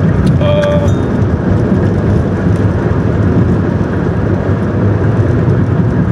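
Steady low rumble of a car's road and wind noise heard inside the cabin while driving, with a brief pitched sound just under a second in.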